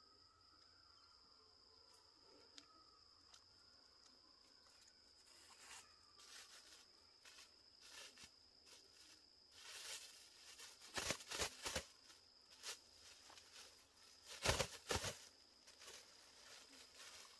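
A plastic bag being handled and opened, crinkling and rustling in short bursts that are loudest about two-thirds of the way in and again near the end. Under it runs a steady high-pitched insect drone.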